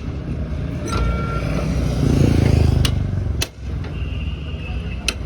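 A motor vehicle passing close by, its engine rumble swelling to a peak about halfway through and then fading. Several sharp clicks or knocks land on top of it.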